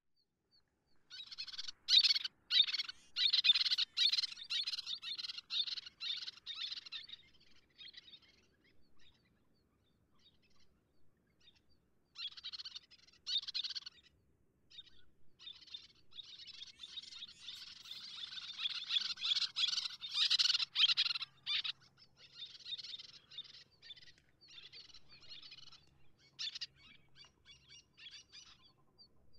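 Little terns calling in bouts of rapid, short calls, with a lull about a third of the way through. The calls are loudest near the start and again about two-thirds of the way in, then thin out to scattered calls near the end.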